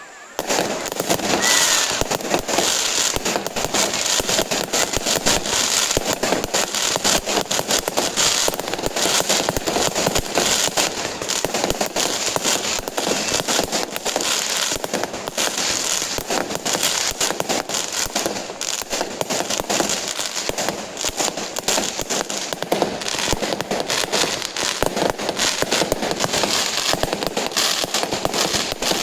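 Aerial fireworks crackling, a dense stream of many small pops in quick succession that starts abruptly.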